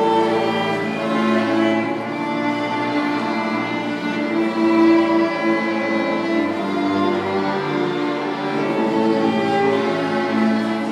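Solo violin playing over a string orchestra accompaniment, with held notes changing in steady succession.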